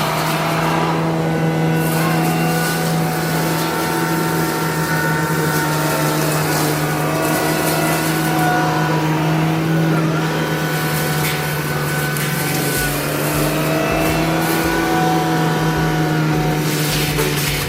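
Cat 299D3 compact track loader running steadily at high revs while shredding branches. A strong, even hum carries several higher whining tones that drift slightly in pitch, over a rough grinding noise.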